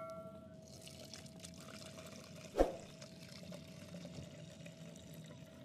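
Liquid pouring in a thin steady stream from a plastic bottle into a plastic jug. A single sharp knock about two and a half seconds in.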